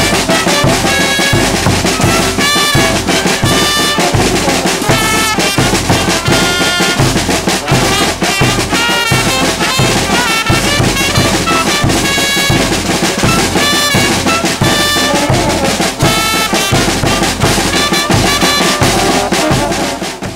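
Bolivian street brass band playing live: trumpets, saxophone and big brass horns over a snare drum and a bass drum keeping a steady beat. The music stops abruptly at the very end.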